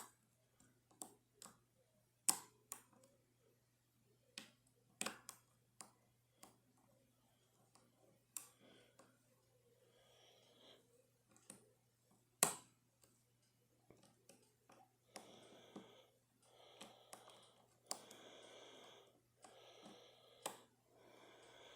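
Lock picks working in a Eurospec MP10 euro-profile cylinder: scattered sharp clicks and taps of the tools on the pins and in the keyway. In the last few seconds there is a run of short noisy bursts about once a second.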